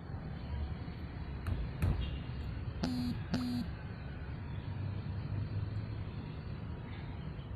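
Daihatsu Gran Max blind van heard from inside the cab while driving, with a steady low engine and road rumble. A couple of clicks come about a second and a half in, then two short beeps about half a second apart.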